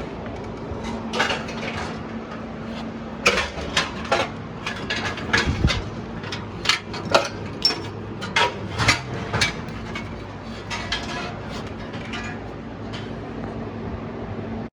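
Irregular metal clanks and knocks of tools and sheet-metal parts being handled, over a steady low hum.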